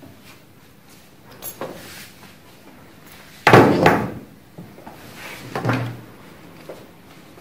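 A hard knock about three and a half seconds in, then a softer thump about two seconds later: plastic anatomical bone models being handled, set down and picked up.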